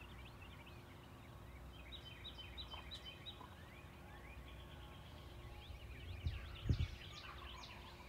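Faint, distant gobbling of a wild Osceola turkey gobbler, which the hunters take for a mature long-bearded tom, with songbirds chirping in the dawn chorus. There are two low thumps near the end.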